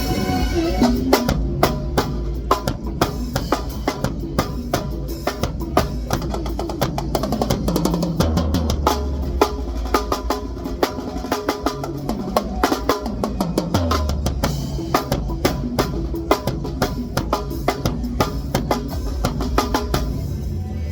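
Drum kit played live: rapid snare and cymbal hits over the bass drum, with fills. Bass and other instruments of the band play along underneath.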